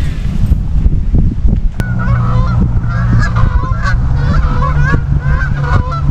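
A flock of geese honking, many calls overlapping, starting about two seconds in over a steady low hum.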